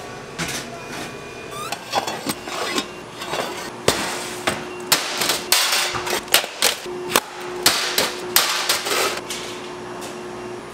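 A rapid, irregular series of sharp knocks and clatters of hard objects, about a dozen of them, clustered in the middle of the stretch over a steady background hum.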